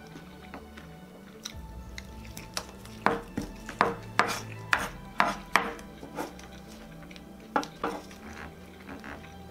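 Metal fork and spoon clinking and scraping as leftover food is gathered from the table, with a run of sharp clinks about three to six seconds in and two more near eight seconds.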